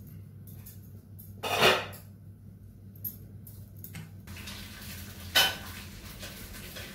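Metal pots and kitchen utensils clattering: two louder clanks, about a second and a half in and again about five seconds in, with a few lighter knocks between.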